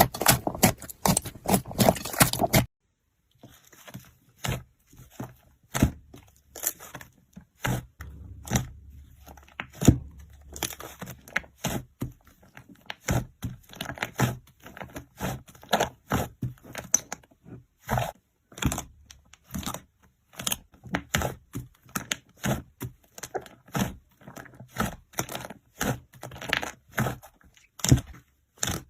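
Slime being squeezed and poked by hand, giving a run of small sticky pops and crackles. They come thick and fast at first, then after a short break turn sparser and irregular.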